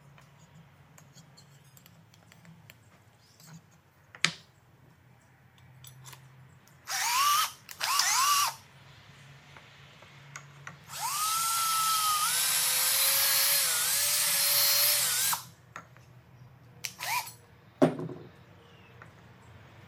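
Electric drill motor whining up to speed in two short bursts, then running steadily for about four seconds, with one more brief burst near the end. There is a sharp knock about four seconds in and a louder one near the end.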